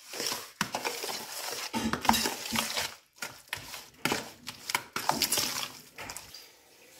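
Raw chicken strips being mixed by hand with spices and lemon in a bowl: irregular wet handling noises and short knocks against the bowl.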